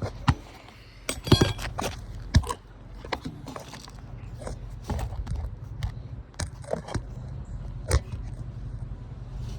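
Irregular clicks, taps and short scrapes from hands and tools working at a roof shingle during a repair attempt, over a steady low hum.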